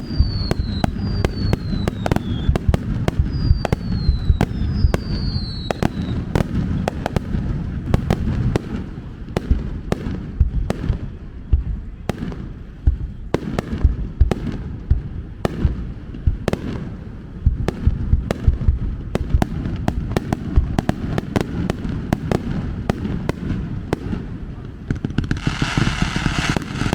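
Fireworks launched at close range in a rapid, continuous barrage: dense bangs and crackling, with four falling whistles from rising shells in the first six seconds.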